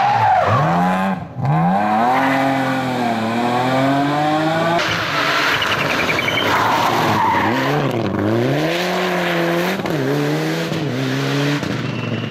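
Rally car engine revving hard, its pitch rising and falling sharply again and again through gear changes and lifts off the throttle, with tyre noise from the car at speed. There is a brief break about a second in.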